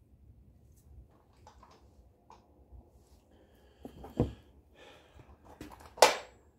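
Hand tools working a brake hose fitting at a car's front brake caliper: scattered light clicks, a knock about four seconds in and a sharp click, the loudest, about six seconds in.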